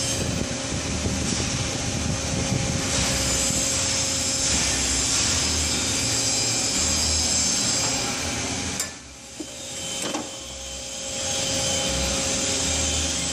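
Metal scraping and knocking as a stainless exhaust muffler is worked onto an exhaust pipe and hanger bracket, over a steady shop hiss. The hiss drops away briefly about nine seconds in, with a couple of sharp knocks.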